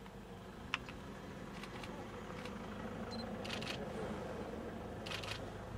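Camera shutter firing in short bursts of rapid clicks, a cluster every second or two, after one sharp single click about a second in, over a low steady background rumble.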